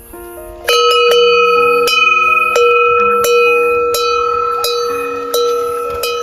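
Closing music of bell-like notes: a run of struck metallic tones that ring on over a held high note, starting sharply less than a second in.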